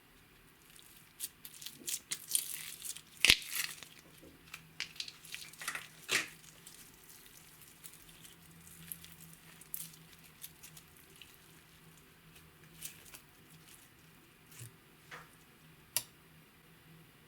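Clear slime being worked by hand, giving sticky crackles, clicks and squishy pops. They come in a dense run over the first few seconds, the sharpest about three seconds in, then thin out to scattered pops.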